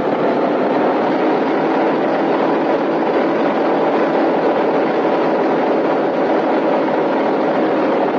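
Boeing B-17 Flying Fortress's Wright Cyclone nine-cylinder radial engines running during a ground run-up, a loud steady drone. It swells up at the start and then holds even.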